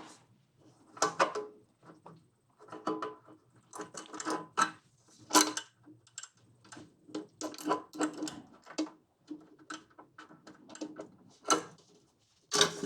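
Metal parts being handled and fitted by hand: irregular clinks, taps and knocks, some with a short metallic ring, coming a few times a second at uneven intervals.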